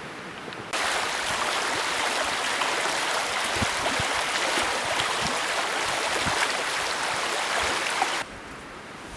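River water rushing and babbling close by, a steady loud hiss that starts abruptly about a second in and cuts off abruptly near the end, with fainter wind and water before and after.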